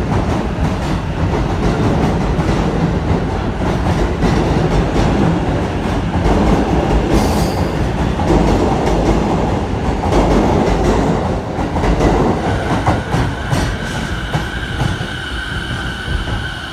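E353 series limited express electric train departing and running past at close range: loud, steady noise of wheels on rail. About twelve seconds in, a steady high whine comes in as an orange Chuo Line rapid train arrives on the neighbouring track.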